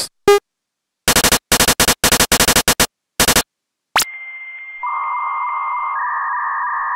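Digital glitch static: short bursts of noise that cut in and out in a rapid stutter, then a click, then a steady electronic beep tone of two held pitches, the higher one stepping down a little near the end.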